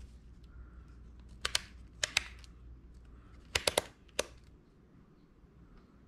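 Meter test probes clicking and tapping against the terminal block screws of a mini split indoor unit, a few sharp clicks in quick pairs and threes, over a faint background.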